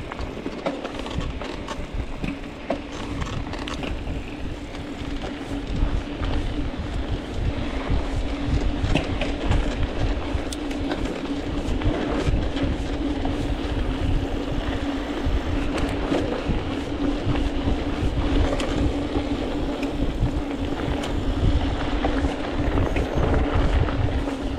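Hardtail mountain bike ridden down a dirt trail: tyres rumbling over the ground and the bike rattling and clicking over bumps, with a steady hum underneath that grows stronger partway through.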